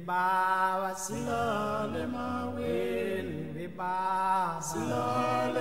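Intro music of slow, chant-like singing: long held notes, each about a second, sliding from one pitch to the next.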